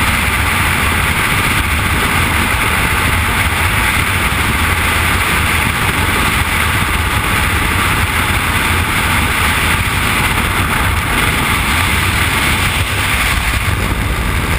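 Loud, steady rush of freefall wind blasting across a skydiving camera's microphone.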